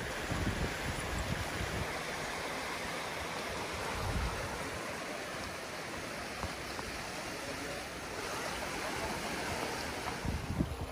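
Shallow, partly frozen river running over rocks between shelves of ice: a steady rush of water. A few low rumbles on the microphone come near the start, about four seconds in and near the end.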